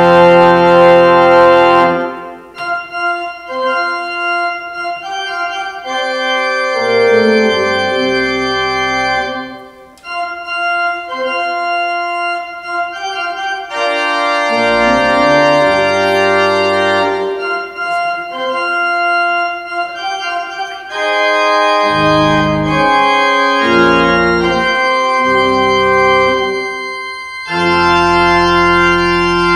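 Church organ playing slow sustained chords in phrases, with short breaks between them. Deep pedal bass notes come in for the last several seconds, ending on a full held chord.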